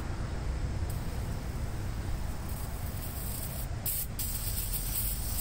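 Aerosol can of PB Blaster penetrating oil spraying onto the muffler's threads at the exhaust manifold in short hissing bursts, with a longer spray from about two and a half seconds in and the strongest burst about four seconds in.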